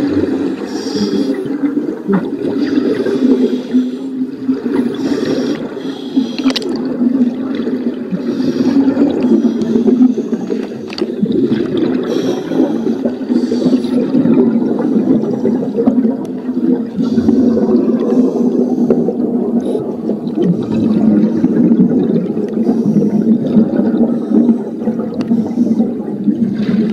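Underwater scuba ambience: a steady muffled water rumble with scuba regulator exhaust bubbles gurgling up every couple of seconds.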